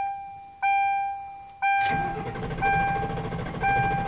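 Dashboard warning chime ringing about once a second. About two seconds in, the starter begins cranking the engine over with a rough, rhythmic churn, and it stops near the end without the engine firing: with the accelerator floored, flood clear mode cuts the fuel injectors so the engine only cranks.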